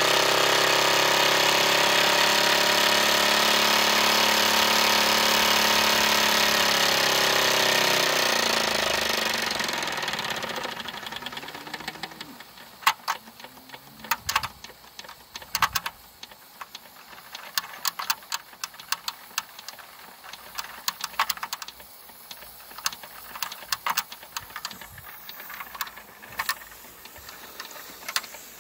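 Wilesco D21 toy steam engine running fast with a rapid, steady mechanical beat. About eight seconds in it slows, falling in pitch and fading over a few seconds until it has nearly stopped. After that only scattered light clicks remain.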